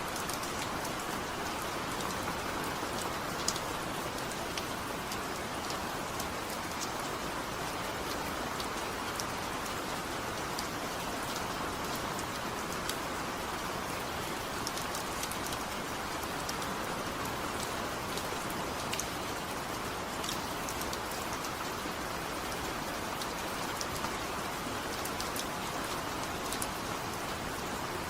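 Heavy rain falling steadily, with no thunder: an even hiss of rain with scattered individual drops ticking on a surface.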